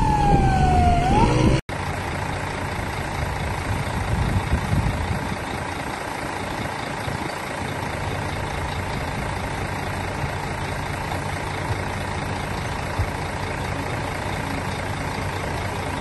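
An emergency-vehicle siren wails, its pitch falling and then starting to rise, and cuts off suddenly about one and a half seconds in. After that comes the steady running of a fire truck's engine.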